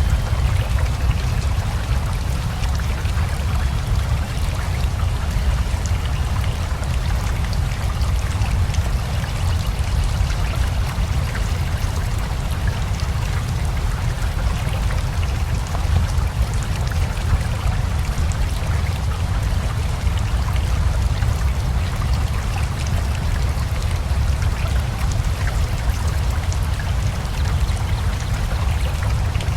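Steady rain with a flowing river: an even rush of water with a heavy low rumble and scattered faint drop ticks, unchanging throughout.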